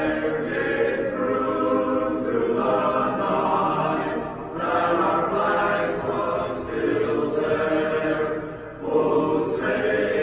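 A group of voices singing a slow anthem together, each note held long, with short breaks between phrases about four and a half and nine seconds in.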